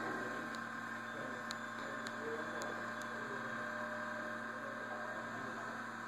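A steady electrical hum with a few faint ticks in the first half.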